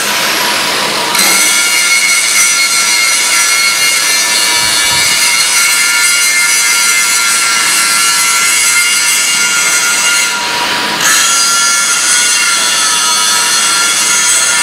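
GZK4240 double-column automatic band saw cutting metal bars: the blade gives a steady, loud, high-pitched ringing whine made of several tones. It turns briefly to a rougher noise about ten seconds in.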